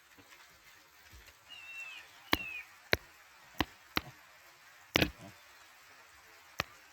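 A chick gives two short, high, falling peeps a couple of seconds in, among half a dozen sharp, irregular clicking taps, which are the loudest sounds.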